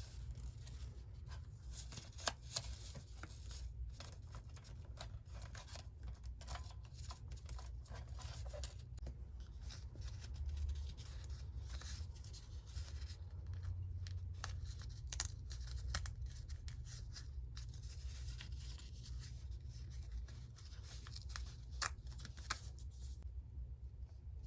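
Paper being worked by hand for a collage journal: crisp rustles, scrapes and short clicks, over a steady low hum.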